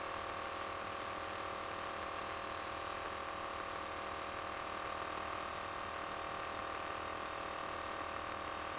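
Steady hum of a light aircraft's cockpit intercom audio in flight, with a few fixed tones and no change in level.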